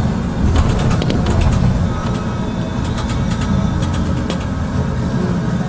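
Bus engine and road rumble heard from inside the moving vehicle, steady and low, with sharp rattling clicks in the first second and a half and again about three seconds in.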